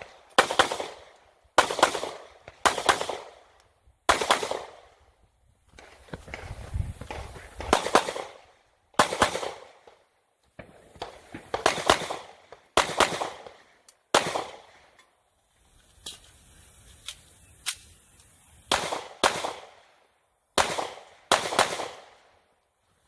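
Gunshots fired on a shooting-match stage: about a dozen shots, mostly a second or more apart with a few quick pairs, each with a short echo, and a pause in the middle with only faint clicks.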